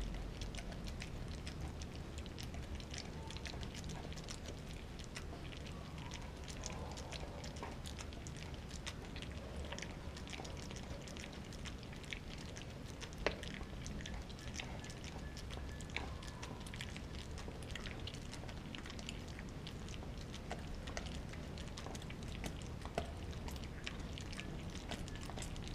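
A dog gnawing a frozen raw pig's foot: an irregular stream of small clicks and scrapes of teeth on hard frozen bone and skin, with one sharper crack about 13 seconds in.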